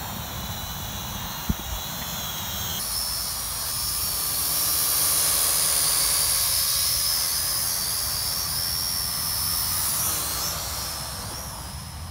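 Quadcopter propellers and motors whining steadily in flight, with wind rumbling on the microphone. About three seconds in the sound switches to another small quadcopter, whose whine grows louder through the middle, wavers in pitch and fades near the end.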